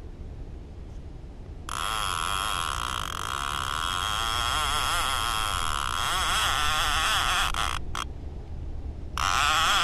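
Bait clicker on an Abu Garcia 6500 baitcasting reel buzzing as a fish runs with the bait and pulls line off the spool. It starts about two seconds in and runs for about six seconds, breaks off briefly, then buzzes again near the end.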